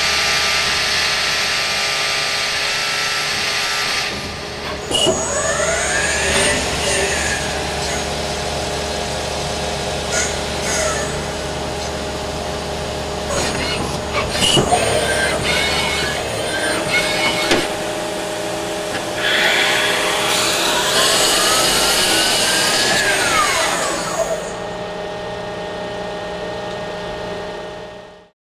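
Miyano BNA-42MSY CNC lathe machining a steel part: a steady machine hum with cutting noise, a live tool drilling into the bore at first. Twice a whine rises and falls in pitch, with scattered sharp ticks. The sound cuts off suddenly near the end.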